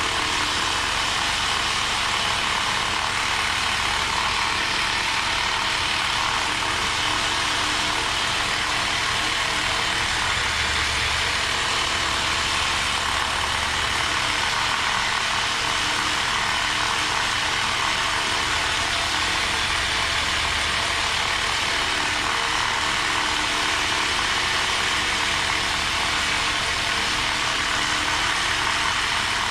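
Professional percussive massage machine running steadily on the shoulder muscles, an even motorised buzz and hiss that holds at one level without letup.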